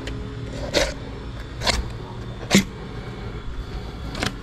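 Sounds of filleting a fish by hand: four short, sharp knocks or slaps about a second apart over a steady low rumble.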